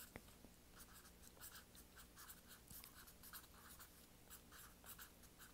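Felt-tip Sharpie marker writing on paper over cardboard: a run of short, faint scratchy strokes, a few a second, as the letters are drawn.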